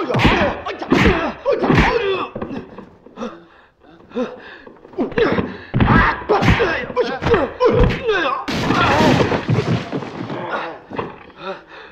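Martial-arts film fight soundtrack: rapid dubbed punch and kick impacts one after another, mixed with shouted fighting yells and pained cries. About eight and a half seconds in, a longer noisy crash lasts a second or so.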